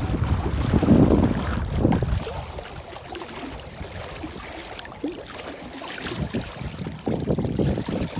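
Wind buffeting the microphone for the first two seconds, then water lapping and splashing against the side of a small boat's hull.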